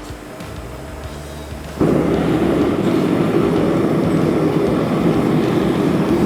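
A forge firing up: a loud, steady rush of air and flame that comes on abruptly about two seconds in and holds.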